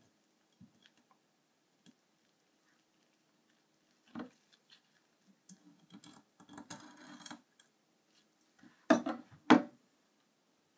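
Kitchen knife and hands working a catfish on a cutting board: a single knock, a stretch of scraping and rustling, then two sharp knocks of the knife on the board near the end.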